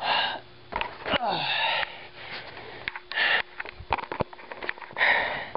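A man breathing hard in short, forceful exhales and sniffs, straining at the end of a plank hold of over two minutes. A few sharp clicks fall between the breaths.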